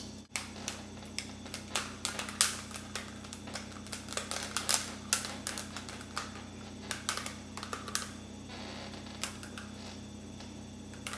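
Irregular light clicks and taps, a few a second, over a steady low hum; the clicks thin out in the last few seconds.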